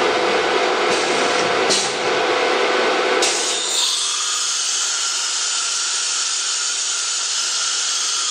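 9.6 kW HSD air-cooled spindle of an ATC 1325 CNC router cutting wood: a steady high-pitched whine over a coarse cutting noise. About three seconds in, the sound changes: the lower rasp drops away and a brighter hiss takes over.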